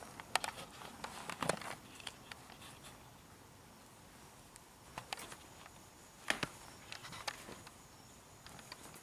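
Scattered sharp clicks and knocks from footsteps and objects being bumped or handled, bunched in the first two seconds and again about five to seven and a half seconds in. A faint high, steady tone runs under the second half.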